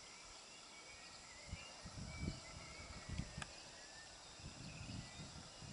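Faint outdoor night ambience. Scattered short, high chirps come and go, and irregular low rumbles set in about a second and a half in. One sharp click sounds about three and a half seconds in.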